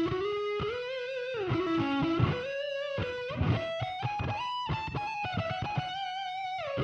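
Electric guitar played through an amplifier's 10-inch speaker: a single-note lead line of held notes joined by slides and bends.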